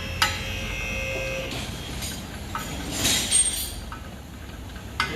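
A metal brake part or tool strikes once with a clank that rings on for about a second, as brake parts are handled during a rotor and pad change. A short hiss follows about three seconds in, then a few lighter clicks, over a steady low shop hum.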